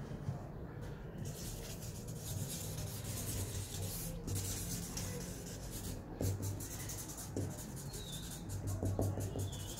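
Marker pen scratching across stiff paper board in quick, repeated short hatching strokes. The strokes start about a second in and come faster near the end.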